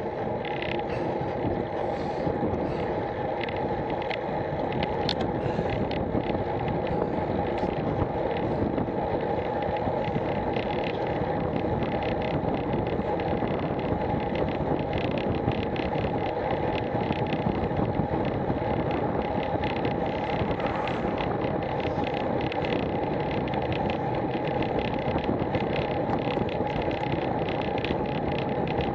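Steady wind rush over a bike-mounted action camera's microphone, mixed with road-bike tyre and road noise while riding along a tarmac lane. It grows slightly louder over the first few seconds as the bike speeds up.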